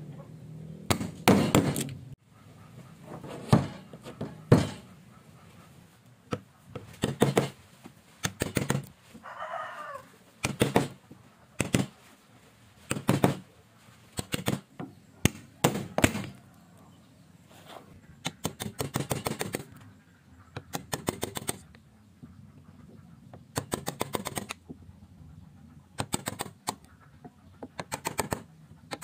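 Steel wood chisel driven into a hardwood beam with sharp blows in irregular bursts, some quick runs of several strikes a second, chopping out a housing for a joint. A brief wavering call cuts in about ten seconds in.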